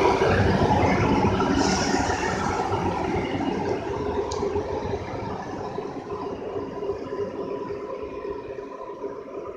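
Class 150 Sprinter diesel multiple unit pulling away, its underfloor diesel engines and wheels giving a steady hum and rumble that fades as the train recedes. A brief hiss of air about a second and a half in.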